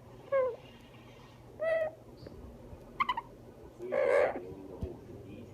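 Amazon parrot giving four short calls spaced about a second apart. The first is a quick falling note, and the last is the loudest and roughest.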